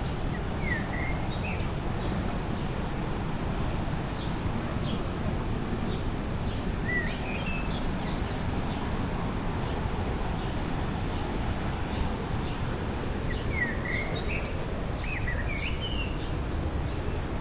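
Steady rushing roar of the waterfall, with birds calling over it in short high chirps about a second in, again around seven seconds, and in a busier run near the end.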